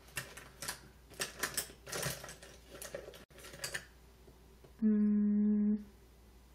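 A run of irregular light taps and clicks for about four seconds, then a woman humming one steady note for about a second.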